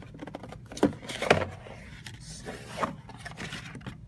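Cardboard box handled and turned over on a wooden table: scrapes and a few sharp knocks, the loudest about a second in.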